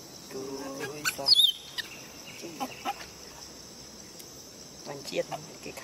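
Outdoor wildlife ambience: a steady high insect drone with scattered animal calls, the loudest a short falling whistle-like call about a second in, and several short low clucking calls.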